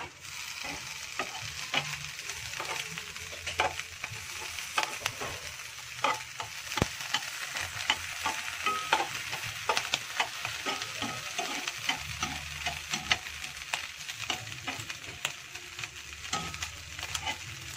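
Slices of ham sizzling in a nonstick frying pan, with frequent sharp clicks and scrapes of tongs turning the pieces against the pan.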